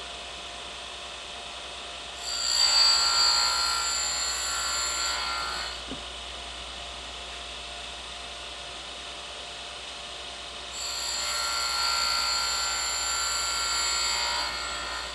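Surface grinder wheel chamfering the edge of a metal plate that is slid along a 3D-printed chamfer block. There are two grinding passes of about three and four seconds, each a gritty hiss with high steady ringing tones.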